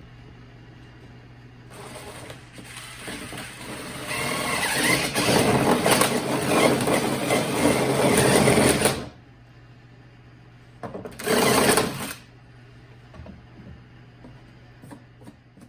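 Power tool cutting a hole in the Maverick's hood panel for a coolant line. It makes a long cut of about seven seconds starting about two seconds in, then a second short burst about eleven seconds in.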